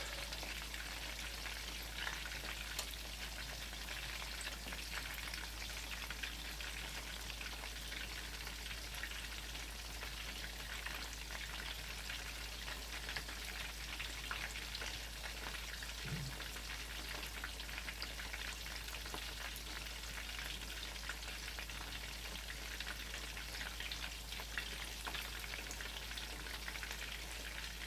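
Chicken cutlets frying in a pan: a steady sizzle full of fine crackles and pops. The chicken is still cooking through on this side.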